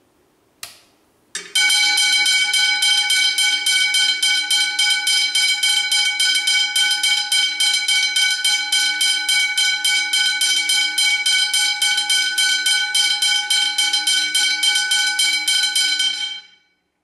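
Westinghouse hybrid level crossing bell, second generation, run on a DC supply: its hammer strikes the gong in rapid, even strokes, ringing loudly and continuously with a steady metallic tone, then stops suddenly near the end. Two short clicks come just before it starts.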